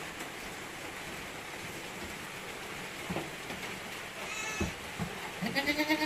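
Goats bleating over a steady hiss: a short, high bleat about four seconds in, then a louder, lower bleat near the end.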